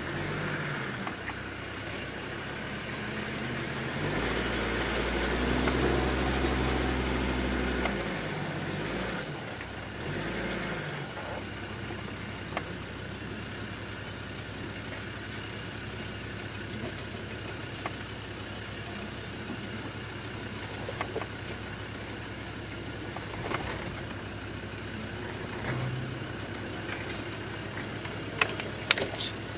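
Land Rover Discovery 2 Td5's five-cylinder turbodiesel engine pulling the vehicle slowly over rough off-road ground, heard from inside the cab. The engine comes up in revs about four seconds in and eases off again by about eight, then runs steadily, with a few knocks and rattles near the end.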